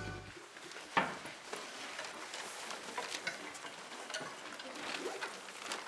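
Classroom bustle as pupils pack their bags and get up from their desks: scattered knocks, clicks and rustling, with one sharper knock about a second in.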